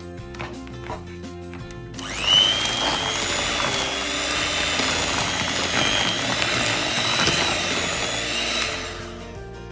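Electric hand mixer switching on with a quick rising whine about two seconds in, then running steadily with its beaters churning thick batter in a plastic bowl. It winds down near the end.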